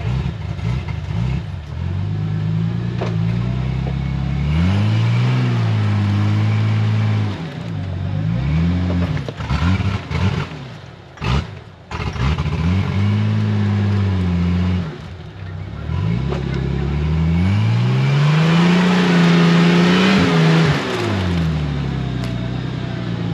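Jeep Cherokee XJ engine revving hard in bursts as it tries to drive its mud-tyred wheels through deep mud. The revs climb and fall about four times, and the longest, loudest climb comes near the end with rough churning over the engine.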